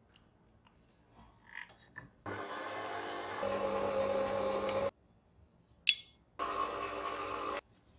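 Electric kitchen mixer whirring through batter for about two and a half seconds, stepping up in pitch partway through, then stopping suddenly. After a sharp click, it runs again for about a second.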